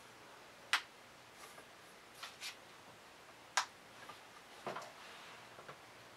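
Sharp clicks of the steampunk lamp's switch as it is pressed to step through the RGB light colours, two loud ones about three seconds apart with softer clicks between them. Near the end a brief rustle and knock as the lamp body is handled.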